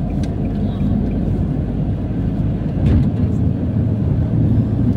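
Steady low rumble of road and engine noise heard inside a vehicle's cabin while it drives at highway speed. A brief louder thump comes about three seconds in.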